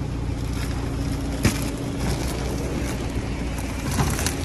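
Bags of garden soil being set down on a small truck's bed over steel mesh, giving a few sharp knocks: one loud knock about a second and a half in and two lighter ones near the end. A steady low vehicle rumble runs underneath.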